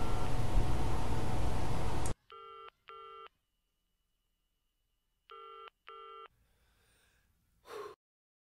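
Loud steady noise cuts off about two seconds in. A telephone bell then rings twice in a double-ring pattern, two short rings close together and the pair repeated about three seconds later. A brief faint whoosh follows near the end.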